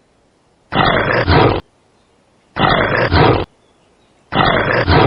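Bear growling, the same roaring growl played three times, each just under a second long.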